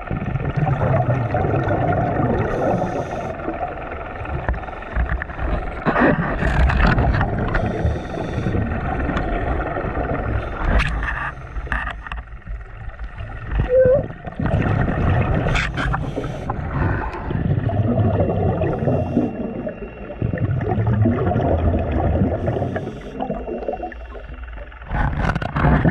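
Scuba diver's regulator breathing underwater: a run of rough, bubbly exhalations several seconds long, with short pauses between breaths.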